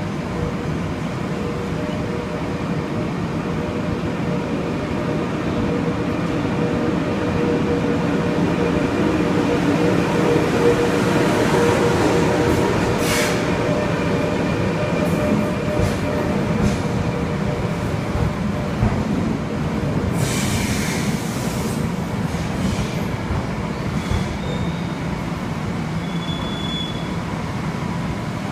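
Long Island Rail Road train running on the rails: a continuous rumble with steady whining tones, broken twice by short hissing bursts, once near the middle and again about two-thirds through, and a few brief thin high squeals near the end.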